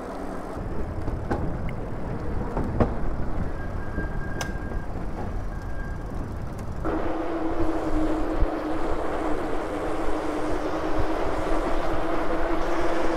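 Riding noise from a Super73 electric bike on a paved path: low rumble with a few sharp knocks over the first half. About seven seconds in, a steady hum comes in and holds, with louder rolling noise around it.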